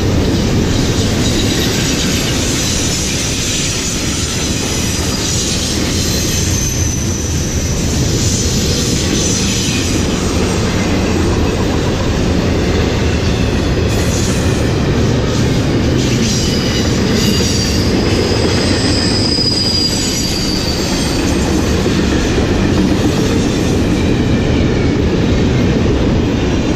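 CSX double-stack intermodal container train passing close by: a loud, steady rumble of steel wheels on rail. High wheel squeals rise over it a few seconds in and again about two-thirds of the way through.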